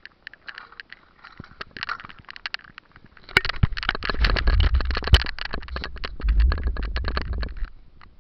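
Stunt scooter rolling on tarmac with a moving, jostled camera: scattered rattling clicks at first, then from about three seconds in a dense run of clicks and rattles over a heavy low rumble that fades near the end, with two sharp knocks about three and five seconds in.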